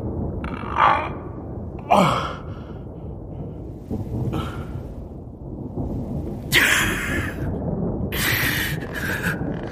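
A person's gasping, sighing breaths and groans, one groan sliding down in pitch about two seconds in and the loudest gasps near the end, over a low steady rumble.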